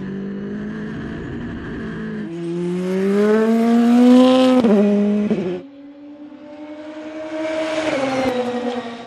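Audi RS 5 DTM race car's two-litre turbocharged four-cylinder engine at speed. It holds a steady note at first, then accelerates hard with rising pitch, dropping sharply twice as it shifts up. The note rises again as the car comes by and falls away near the end.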